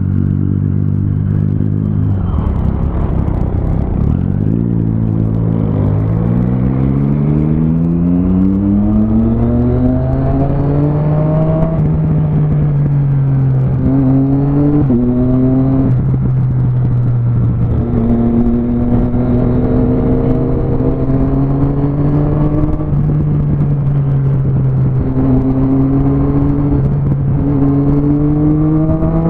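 Motorcycle engine and exhaust heard from on board while riding. It runs low at first, then pulls away about five seconds in with its pitch climbing, settles into a steady drone at cruising speed, and climbs again near the end.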